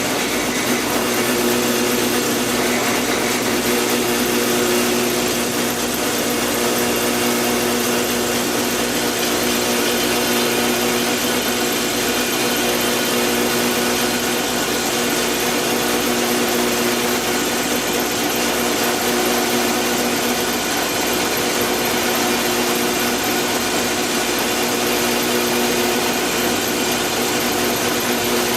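Electric power tool motor running steadily at constant speed, with a steady hum and a broad whine over it.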